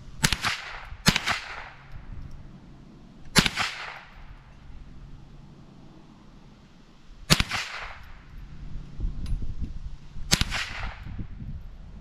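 Five shots from a Mossberg 702 Plinkster semi-automatic .22 LR rifle, each a sharp crack with a short echo tail. The first two come less than a second apart, then three more follow a few seconds apart.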